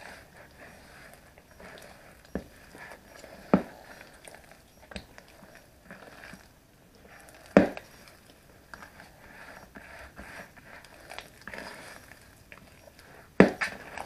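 Kitchen handling noise while cooking: low rustling and light clatter, broken by three sharp knocks several seconds apart, the last near the end, with a smaller knock before the first.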